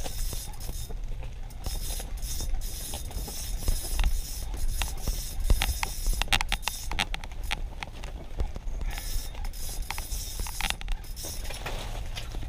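Fishing reel cranked against a hooked fish, its gears and drag giving off irregular ratcheting clicks.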